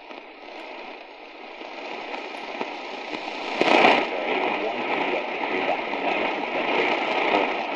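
A weak distant AM station on 870 kHz medium wave coming through the RADIWOW R-108's speaker: hissy static with faint programme audio under it. The signal swells up a little under four seconds in and stays stronger afterwards.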